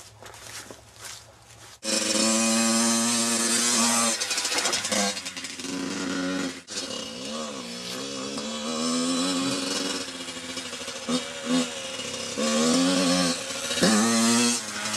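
Yamaha YZ85 dirt bike's two-stroke single-cylinder engine, coming in suddenly about two seconds in, then running and revving up and down, its pitch rising and falling again and again.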